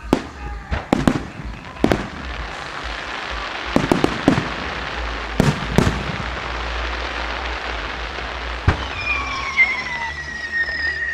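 Aerial fireworks: a series of sharp booms from shells bursting overhead, with a steady crackle of burning stars between them. Near the end a long whistle slowly falls in pitch.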